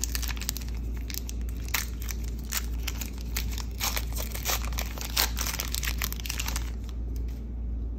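Hands tearing open and crinkling the wrapper of a Topps Heritage baseball card pack: a run of sharp rips and crackles that dies down about seven seconds in.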